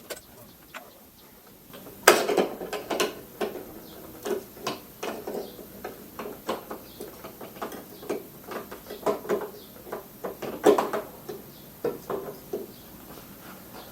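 Wrench and metal parts clinking and knocking as bolts are undone on the moped's front fork and headlight bracket: irregular clicks, with a louder knock about two seconds in and another near the end.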